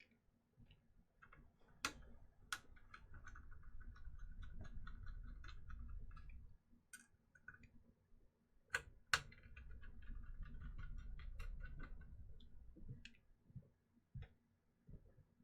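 Faint sound of small screws being driven into a graphics card with a magnetic screwdriver: a couple of sharp clicks as the bit meets the screw, then a few seconds of fine rapid ticking and low rubbing as it is turned, twice over.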